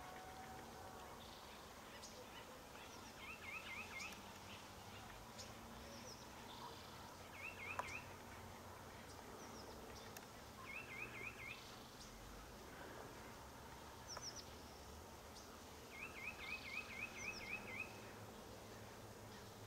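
A small bird singing a short, rapid, warbling trill, repeated four times with the last phrase longer, along with a few faint high chirps over quiet outdoor background hiss.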